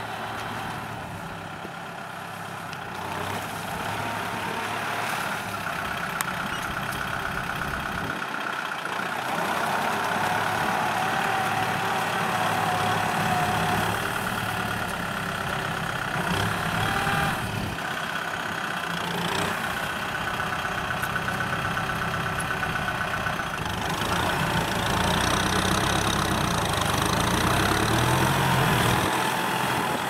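Kubota M6040SU tractor's diesel engine running under load as it pulls a mounted disc plough through stubble, growing louder over the stretch, with a wavering whine riding over the engine.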